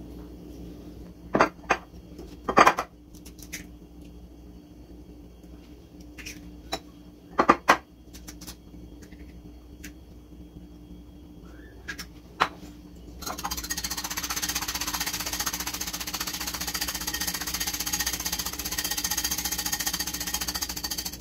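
A few sharp knocks and clicks as a blender jar, bowls and an egg are handled, the loudest a couple of seconds in and again about seven seconds in. From about thirteen seconds a wire whisk beats egg rapidly and steadily against a ceramic bowl.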